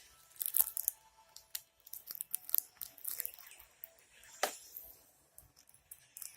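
Handling noises: a string of irregular clicks and crinkles, with the loudest about half a second in and another strong one about four and a half seconds in.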